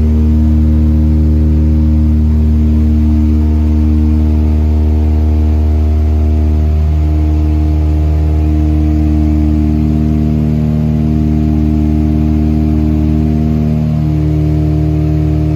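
Propeller engines of a small twin-engine aircraft droning steadily in cruise flight, heard from inside the cabin. The drone slowly swells and fades every few seconds.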